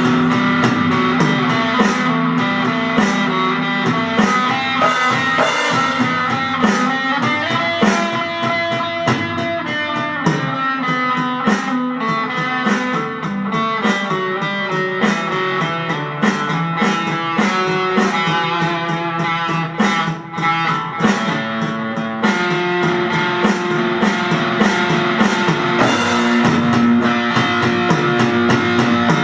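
Instrumental rock music: electric guitar playing over a drum kit, with a steady beat.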